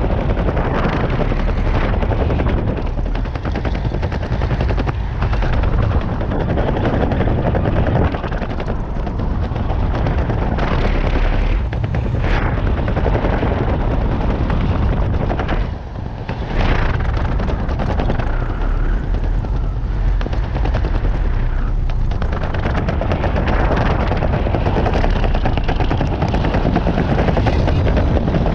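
Airflow buffeting the microphone of a camera worn by a skydiver descending under an open parachute: a loud, steady, rough rushing with a deep rumble, briefly easing about halfway through.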